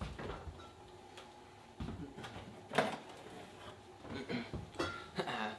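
A refrigerator door is pulled open, followed by a few separate knocks and clunks as things on the fridge shelves are handled. The sharpest knock comes a little under halfway through.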